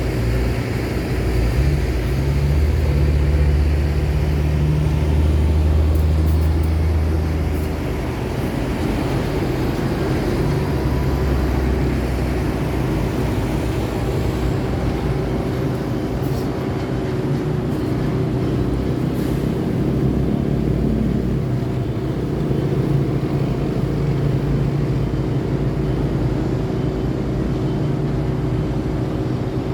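Road traffic with heavy engines running close by: a deep rumble for the first several seconds, then a steady drone of idling and passing vehicles.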